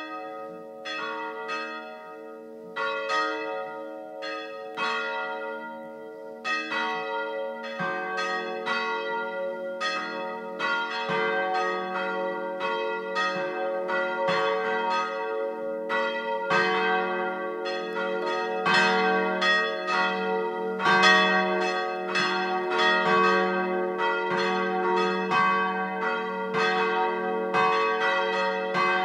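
Several church bells ringing, each strike leaving a long hum underneath. The strikes come a few seconds apart at first, then from about eight seconds in they come thick and overlapping and grow louder.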